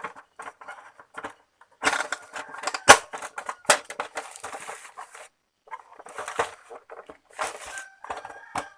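Plastic parts of an Epson L360 inkjet printer being handled and fitted back together: irregular clicks, knocks and rustles. The sharpest knocks come about three seconds in.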